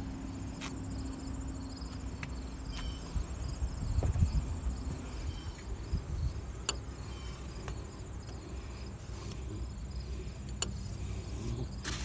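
Insects chirping in a fast, even, high-pitched pulse, over a low background rumble, with a few short clicks.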